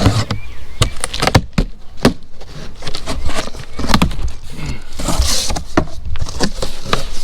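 Irregular knocks and clatter of new suspension control arms and their packaging being handled and unpacked, with a burst of rustling packaging about five seconds in.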